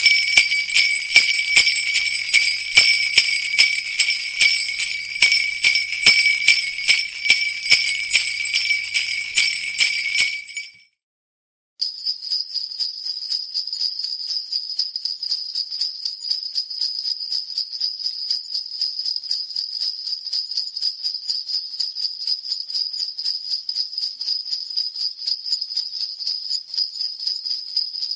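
Sleigh bells shaken in a steady rhythmic beat, stopping about ten seconds in. After a second of silence a second jingle-bell sound starts, quieter and faster and more even, a continuous shimmer of small bells.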